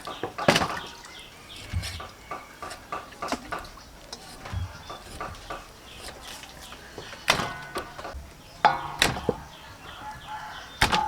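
Scattered knocks and clatter of cooking utensils and dishes, with chickens and small birds calling in the background.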